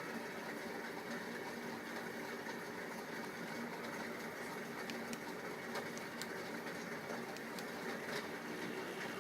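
Small electric motor of a homemade table fan running steadily with a constant hum, and a few faint ticks in the second half.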